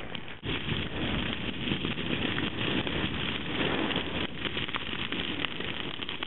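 Grass and bush fire burning, with many sharp crackles from the dry grass over a steady low rumble.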